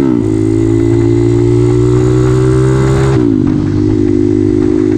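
Mini trail bike's small single-cylinder engine running under way. The pitch climbs slowly, drops quickly about three seconds in, as at a gear change or easing off, then holds steady. Heavy wind noise on the microphone.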